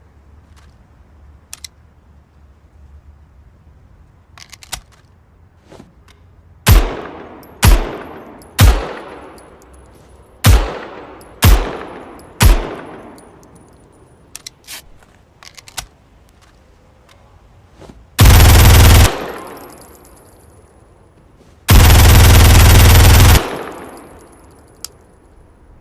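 Uzi submachine gun sound effect: six single shots in two groups of three, each ringing out briefly, then a short full-auto burst and a longer full-auto burst of about a second and a half. Faint clicks come between the shots.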